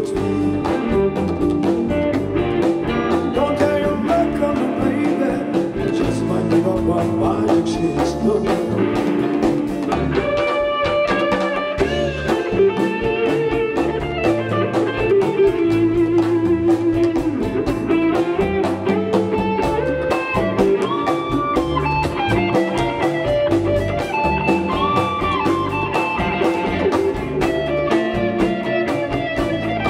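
Live rock band playing loud music: an electric guitar plays a lead line with bent notes over electric guitars, bass guitar and a drum kit.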